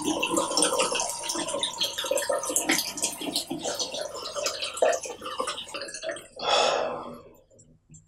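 Water from a tap running and splattering into a bathroom sink, with a louder rush of splashing about six and a half seconds in, then dying away.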